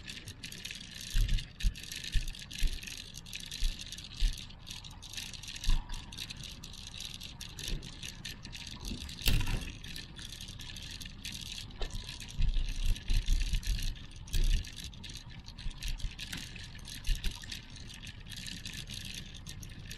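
Outdoor promenade ambience: a steady hiss with many irregular low thumps on the microphone, and one louder clatter about nine seconds in.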